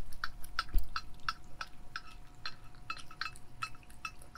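Cats eating wet food from sachets: a run of small wet clicks and smacks from their chewing and licking, about three or four a second.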